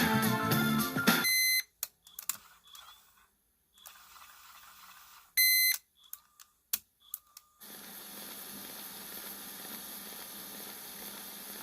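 Background music cuts off about a second in. Then comes a short electronic beep, a few scattered clicks, a second beep and more clicks. From about two-thirds of the way through there is a steady hiss with a faint low hum.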